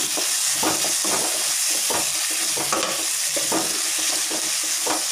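Diced vegetables sizzling in hot oil in a wok while a spatula stirs and tosses them. The steady sizzle is broken by irregular scraping strokes of the spatula against the pan.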